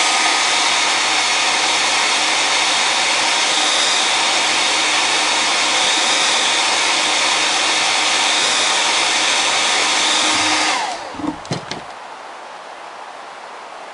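Small electric blower motor running with a steady whine over a rush of air, then switched off about eleven seconds in, its whine winding down, followed by a few handling clicks.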